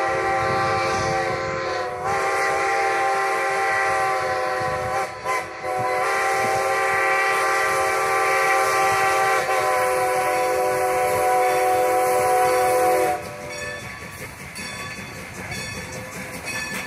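Strasburg Rail Road No. 90's steam whistle blowing long blasts, broken by two short gaps, then cutting off about 13 seconds in. The rumble and clatter of the approaching steam locomotive and its coaches on the rails follow.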